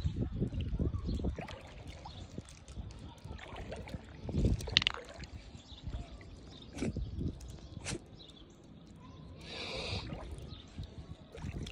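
Shallow water sloshing and gurgling around shore rocks while a dog noses among the stones at the waterline, with a few sharp clicks and a short noisy burst about ten seconds in.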